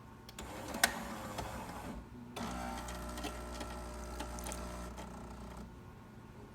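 Jura Impressa super-automatic espresso machine working through a test shot. First comes a stretch of mechanical whirring with one sharp click, then a steady buzzing hum for about three seconds that stops near the end.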